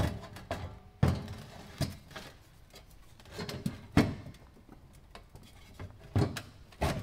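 Small lawn tractor battery being pushed into a welded sheet-steel battery box, knocking and scraping against the metal as it catches on the door hinges: a tight fit. About half a dozen irregular knocks, the loudest about four seconds in.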